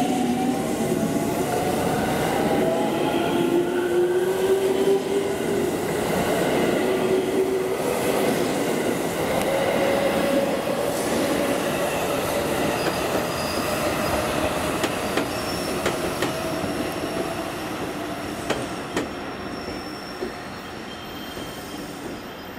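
JR Central 313 series electric multiple unit accelerating away: its inverter-driven traction motors whine in several tones rising in pitch, over the rumble of wheels on rail. In the second half the sound fades as the train leaves, with a few sharp clicks of wheels over rail joints.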